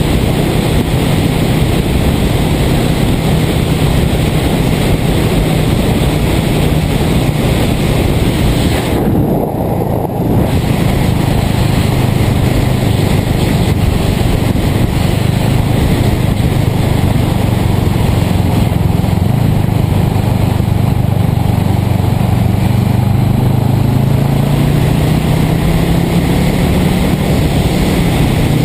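Freshly rebuilt 1978 Yamaha XS400's air-cooled parallel-twin engine running at a steady cruise under heavy wind and road rush on the microphone. The wind hiss thins briefly about nine seconds in, and near the end the engine note rises as the bike speeds up.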